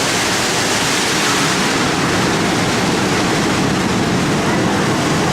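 Indoor waterfall pouring from a bowl at the top down into a lagoon: a steady, even rush of falling water.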